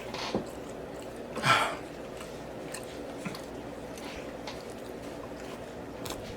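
A person eating close to the microphone: chewing and biting with wet, squishy mouth sounds and small clicks, and one louder noisy burst about a second and a half in.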